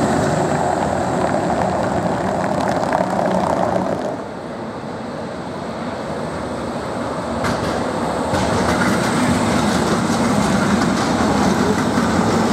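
Tram running on street track, with a steady rumble of wheels on rails. The noise is loud at first, drops suddenly about four seconds in, then builds back up from about seven seconds.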